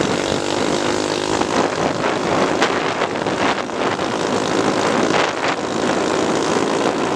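Motorcycle engine running steadily while riding a gravel dirt road, under a loud rush of wind on the microphone, with short knocks and crunches from the tyres on the loose surface.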